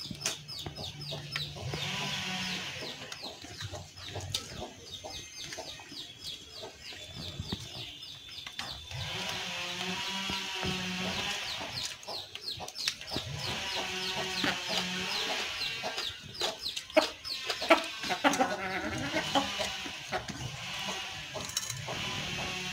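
Chickens clucking on and off, with quick high chirping notes in between.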